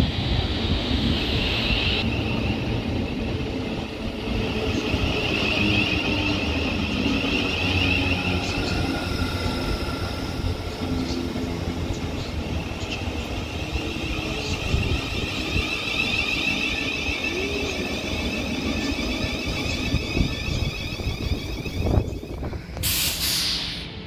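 Class 700 electric multiple unit pulling in alongside the platform: a steady rumble of wheels on the rails under a high whine from its traction equipment. A brief noise burst comes near the end.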